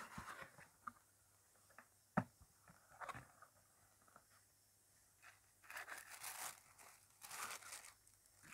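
A cardboard mailer box being opened, with one sharp click about two seconds in. Tissue paper rustles and crinkles in two longer spells in the second half.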